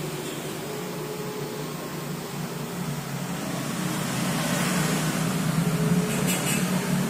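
Domestic cat purring steadily in a low, continuous rumble, growing a little louder about four seconds in.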